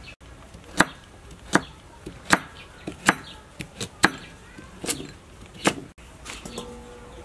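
A cleaver chopping a carrot on a thick round wooden chopping block: seven sharp chops, about one every three-quarters of a second.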